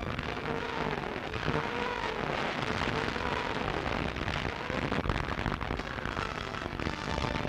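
Battle sound on an old film soundtrack: a dense crackle of machine-gun fire and explosions over a steady hiss, with no single blast standing out.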